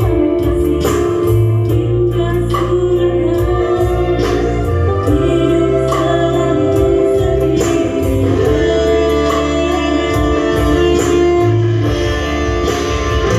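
Music from an electronic keyboard (organ) played loud through a sound system, with a steady drum beat and a singing voice.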